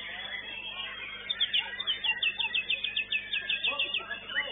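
White-rumped shama singing a fast run of repeated high notes, about seven a second, followed near the end by a few rising notes.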